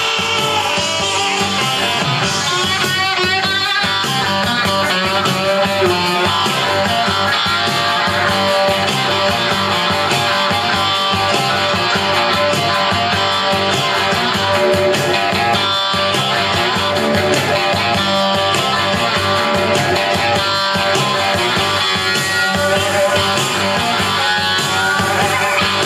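Rock music with no singing: an electric-guitar instrumental break over a steady beat, played back through a stereo hi-fi system of Magnat Signature 503 three-way speakers and an SVS SB-3000 subwoofer.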